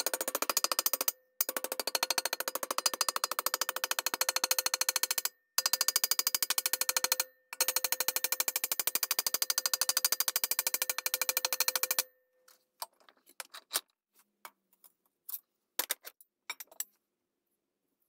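Hammer rapidly striking a sheet-metal repair patch clamped over a steel box tube in a vise, folding the edge into a radius, with the metal ringing under the blows. The strikes come in fast runs with three short pauses and stop about two-thirds of the way through, followed by a few scattered clicks and knocks as the metal is handled.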